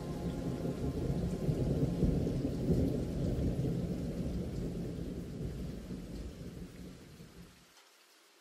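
Low rumbling noise of wind buffeting the microphone. It fades away about six to seven seconds in and stops abruptly near the end.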